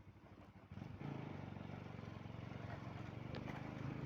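A motor vehicle's engine running steadily, coming in loudly about a second in.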